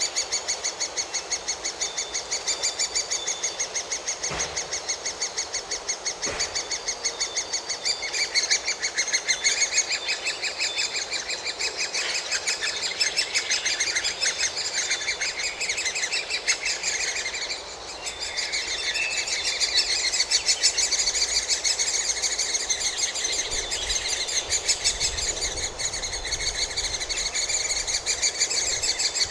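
Great spotted woodpecker nestlings begging at the nest: a continuous, rapid, high-pitched chattering of many calls a second, with a brief lull a little after halfway.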